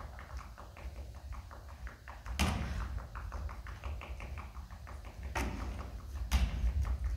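Fast, even tapping rhythm, about five or six taps a second, broken by three loud sharp hits about two and a half, five and a half and six and a half seconds in: percussive accompaniment to a dance piece.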